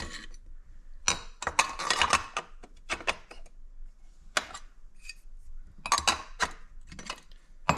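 Metal clinks and knocks as a chainsaw muffler and its bolts are handled and fitted onto a Stihl MS400C: a quick run of knocks about a second in, then scattered clicks.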